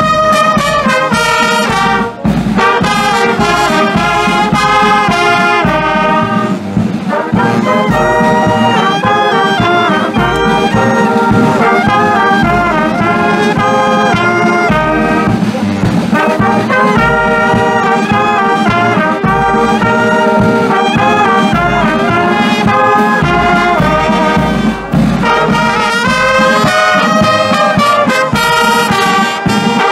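Brass band playing a tune in unison, led by trumpets and trombones, with drums keeping a steady beat underneath.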